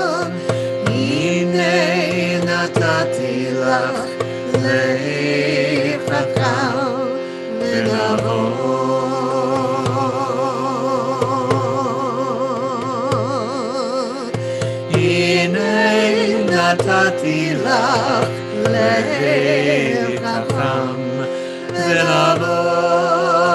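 A solo voice chanting a slow, melismatic melody with wide vibrato over a steady instrumental drone of a few sustained notes.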